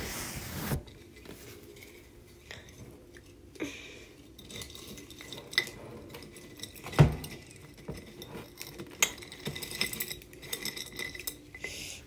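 Hard natural objects (rocks, shells, sticks) being rummaged through by hand: scattered light clicks and knocks, with a louder knock about seven seconds in.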